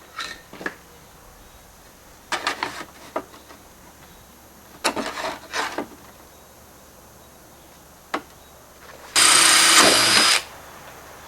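Slate roofing work: short bouts of slate knocking and scraping as a piece is handled and fitted, a single sharp click, then a loud, harsh noise lasting about a second near the end.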